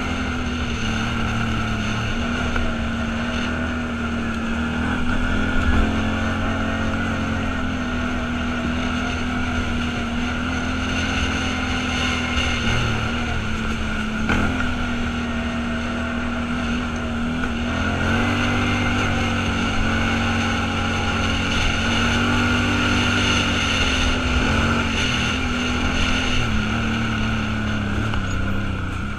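Vehicle engine running steadily under way, its pitch holding fairly level with small rises and dips.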